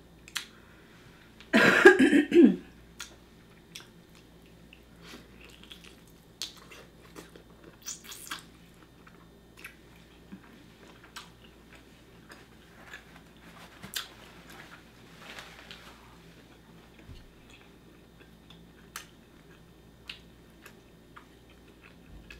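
Close-miked eating of saucy Cajun seafood by hand: chewing, lip smacks and scattered small wet clicks. About a second and a half in, a brief loud cough-like throat sound is the loudest thing.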